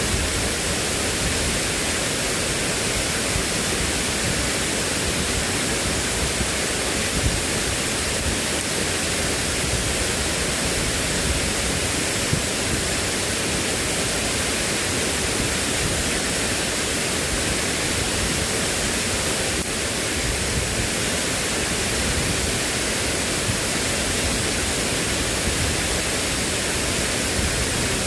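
Steady, unbroken rushing hiss of water, heavy rain or fast flood water, with no other sound standing out.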